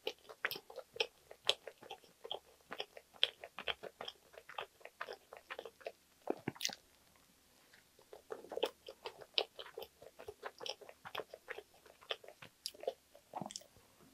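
Chewing a soft cookies-and-cream sandwich on white bread: a dense run of small wet mouth clicks and smacks, easing off for about a second around seven seconds in, with a fresh bite near the end.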